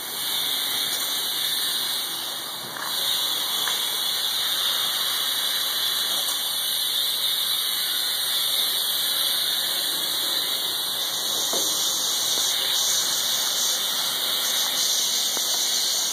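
High-pressure car-wash spray wand jetting water in a steady hiss, easing briefly about two and a half seconds in.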